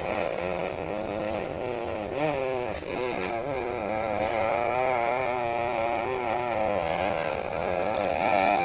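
A continuous motor-like drone whose pitch wavers up and down without a break, standing in for someone's snoring; it cuts off suddenly at the end.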